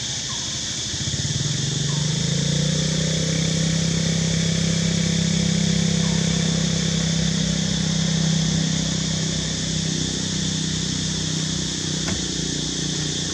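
An engine hums steadily, coming in about a second in and easing off near the end, over a constant high hiss.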